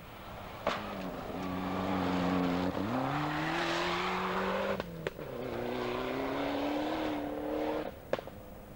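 Rally car engines revving hard as the cars drive past on a loose gravel forest stage. The engine note climbs steeply, breaks off about five seconds in, and starts climbing again. Sharp clicks mark the breaks, and there is a spray of gravel noise under the engine.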